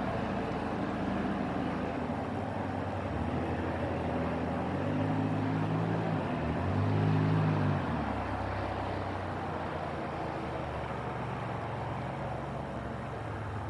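Steady low engine hum of a motor vehicle over a bed of outdoor background noise. It grows louder about five seconds in, peaks around seven seconds, then falls back.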